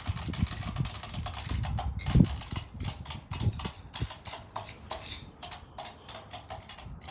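Beyblade spinning tops clattering in a plastic stadium: a dense rattle of clicks that thins, from about two seconds in, to separate irregular clicks, with one low knock near two seconds.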